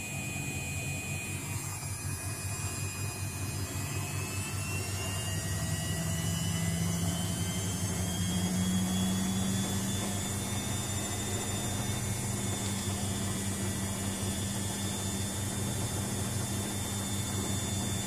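Luxor WM 1042 front-loading washing machine on its 1000 rpm spin with an unbalanced load. The motor whine rises in pitch for the first several seconds as the drum speeds up, then holds steady over a low hum.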